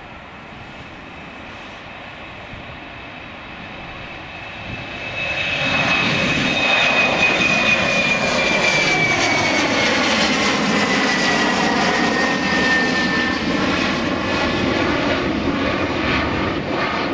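Embraer 195 airliner's twin turbofan engines at take-off thrust as it lifts off and climbs out. The sound swells sharply about five seconds in as the jet passes close by, with a high whine that slowly falls in pitch, and stays loud as it climbs away.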